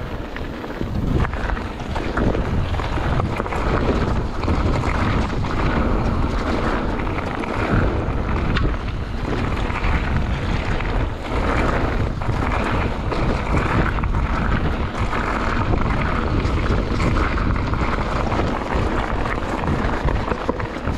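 Mountain bike descending a gravel singletrack at speed: wind buffeting the action camera's microphone over the rumble of tyres on loose stone, with frequent short knocks and rattles from the bike over bumps.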